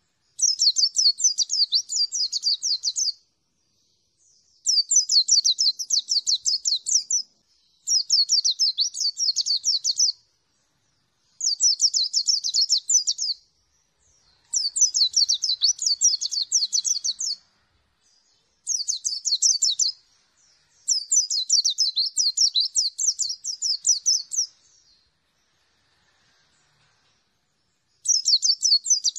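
Caged white-eye (pleci) singing: eight phrases of rapid, high-pitched twittering, each two to three seconds long, with short pauses between them and a longer pause near the end.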